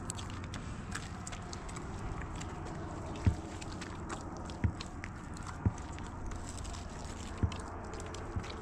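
Bread dough being kneaded by hand in a plastic basin, with four dull thumps a second or two apart as it is pressed down, over steady background noise.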